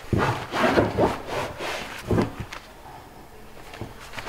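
Gloved hands rolling and pressing a warm batch of hard candy on a table: several rubbing, knocking strokes in the first couple of seconds, then quieter handling.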